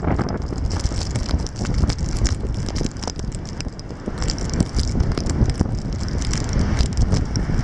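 Snowstorm wind blowing hard across the microphone, a steady low rumble, with many sharp ticks and crackles throughout.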